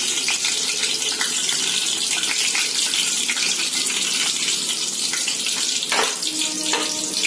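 Vadagam seasoning frying in about a quarter cup of hot oil in an aluminium pot: a steady sizzle with small crackles. A single knock comes about six seconds in.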